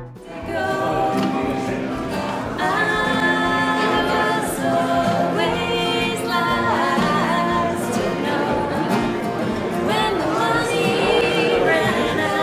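Two women singing together, accompanying themselves on acoustic guitars, with the echo of a large hard-floored room.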